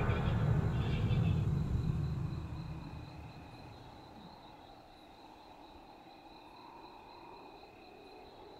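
A low rumble fades out over the first three seconds, leaving a quiet night ambience of crickets trilling steadily at a high pitch.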